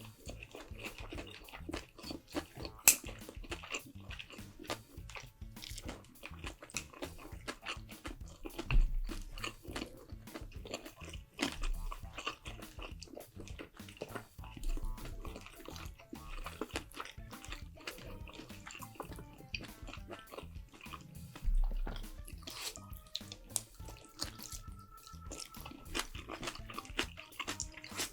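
Close-miked eating: steady chewing and biting with many small crunches and wet clicks, a couple of dull low thumps among them, over background music.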